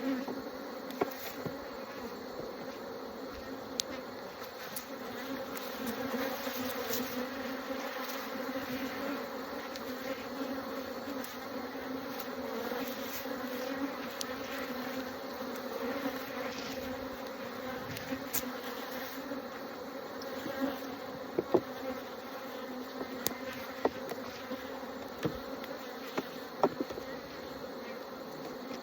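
A colony of honeybees buzzing steadily around an open hive, a low even hum with occasional sharp clicks, more of them in the second half. The beekeeper judges the colony queenless.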